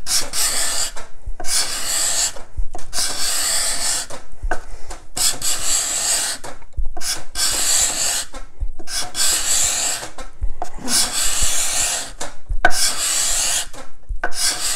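Bahco card scraper pushed over and over across an African mahogany board, each scraping stroke lasting under a second with a short pause between, about one a second. The edge's freshly burnished hook is cutting fine shavings rather than dust, the sign of a sharp scraper.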